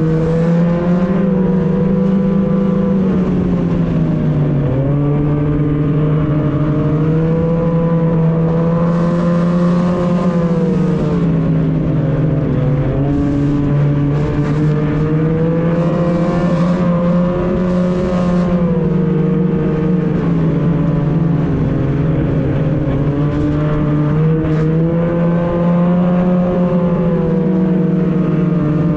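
Snowmobile engine running on the move, heard from the rider's seat, its pitch sagging and climbing again several times as the throttle is eased and opened.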